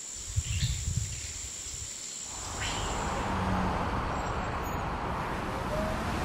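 Outdoor ambience: a thin steady high tone and a couple of short bird chirps over a low rumble, then road traffic noise that swells about two and a half seconds in and stays.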